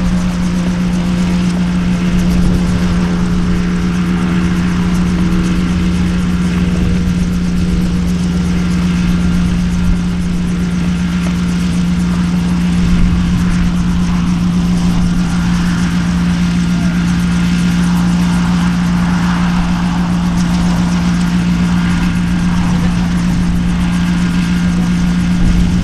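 RotorWay A600 Talon helicopter's flat-four piston engine running at a steady ground idle, its main rotor turning slowly. A constant low drone with no revving.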